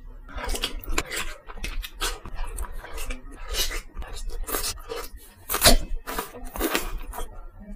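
Close-up wet eating sounds as a soft orange fruit jelly is bitten, sucked into the mouth and chewed, in a quick, uneven run of squelches and mouth smacks, the loudest a little past halfway.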